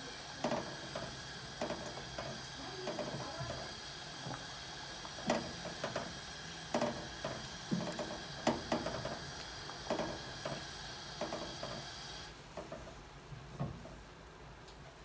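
A steady hiss from a pan of boiling water on a gas hob, with repeated clicks and taps as kitchen tongs open, close and knock against the pan and a glass baking dish while lasagna sheets are lifted out. The hiss cuts off about twelve seconds in.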